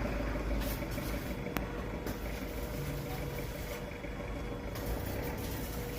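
Steady low engine rumble of a vehicle running, with a faint steady hum above it and a single sharp click about a second and a half in.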